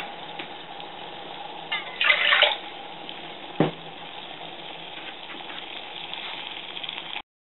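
Water at a rolling boil in an aluminium beer-can pot over an alcohol stove: steady bubbling and hiss. There is a louder rush about two seconds in and a single sharp click about halfway through.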